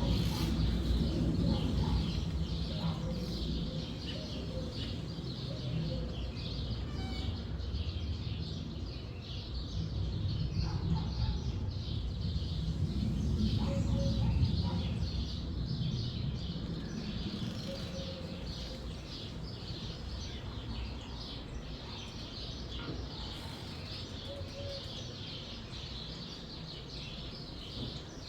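Wind gusting through forest trees, a low rumble that swells at the start and again around the middle, under continuous chirping of many small birds. A few short low notes sound now and then.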